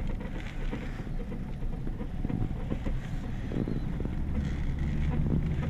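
A vehicle driving slowly on a dirt road, its engine and tyres rumbling low as heard from inside the cab; a steadier low engine hum comes in near the end.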